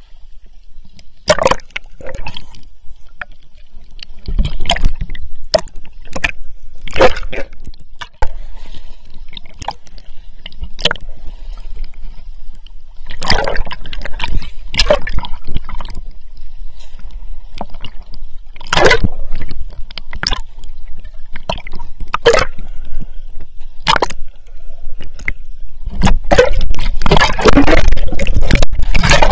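Sea water splashing and sloshing against a waterproof action camera as it dips in and out of the surface while someone swims, with muffled underwater gurgling. Sharp splashes come at irregular moments over a low rumble, growing dense and loudest near the end.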